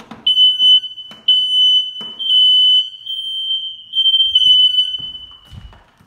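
Newly installed smoke alarms sounding on test: a shrill high-pitched tone in repeated beeps about half a second long, which stops just before the end.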